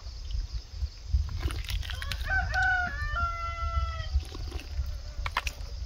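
A rooster crows once, a call of about two seconds that starts about two seconds in, its pitch stepping down partway through, over a steady low rumble.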